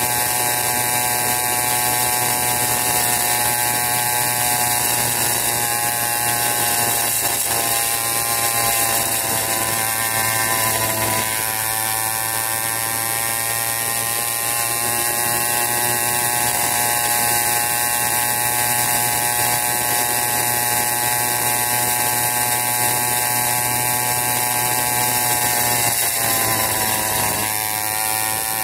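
Wildcat PK80 80cc two-stroke bicycle engine running under way with a steady, high buzz. Its pitch dips and climbs back twice as the throttle is eased and reopened.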